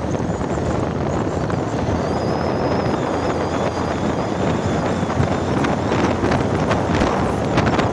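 Steady wind rushing over the microphone of a motorcycle riding at speed, with the engine and road noise running beneath.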